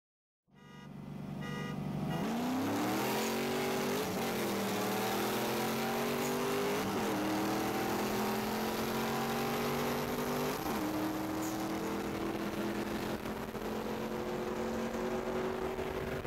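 2002 Camaro Z28's LS1 V8 heard from inside the cabin, accelerating hard from a rolling start. The revs climb and drop back at three upshifts, about 4, 7 and 10.5 seconds in, then keep pulling in the top gear reached.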